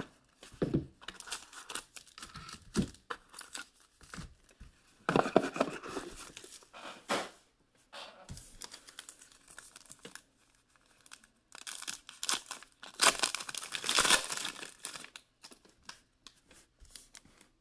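Cellophane wrapper crinkling and a foil trading-card pack being torn open, in irregular bursts of crackling. It comes in two louder stretches, about five seconds in and again about thirteen seconds in.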